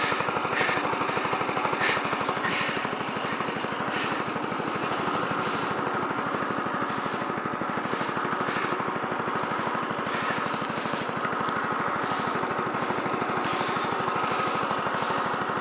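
Go-kart's small engine running at a steady, high pitch from the driver's seat, with short bursts of hiss every second or so as the kart slides.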